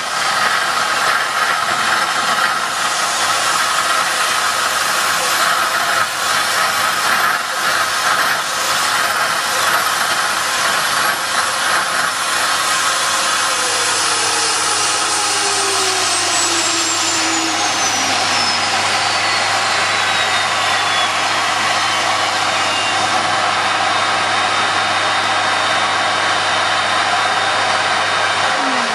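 Homemade jet engine built from a car turbocharger, running with a loud, steady roar and hiss at low power. Partway through, a high turbine whine falls steadily in pitch over about ten seconds as the turbo slows.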